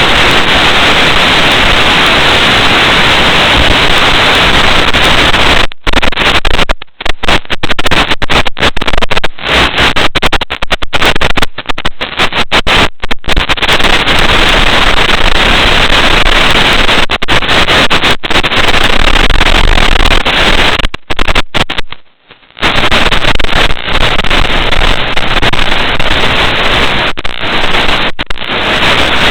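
Loud, steady static hiss from an analog FPV video receiver's audio channel, broken by many sudden short dropouts and a longer gap of about half a second about 22 seconds in.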